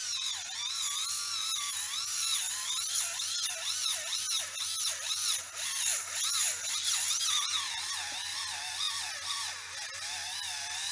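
Kemei electric callus remover running, its motor-driven roller file grinding hard skin off the sole of a foot, with a whine whose pitch wavers up and down continually as it is pressed and moved over the skin.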